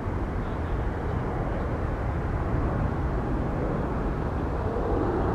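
Airbus A330-200's twin turbofan engines at climb power after takeoff, heard from the ground as a steady, low-pitched rumble that grows a little louder near the end.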